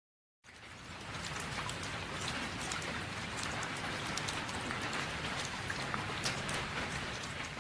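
Steady rain sound effect: an even hiss of rain, dense with small drop ticks. It fades in about half a second in and begins to fade near the end.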